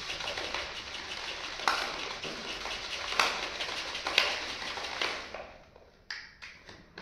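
Plastic shaker bottle shaken hard to mix whey protein powder into liquid: a dense sloshing rattle with a few sharper knocks, lasting about five seconds before it stops. A few light clicks follow near the end.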